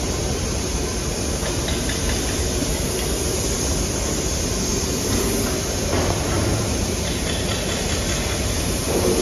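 Steady factory-floor machinery noise: a constant mechanical rumble with a few faint knocks.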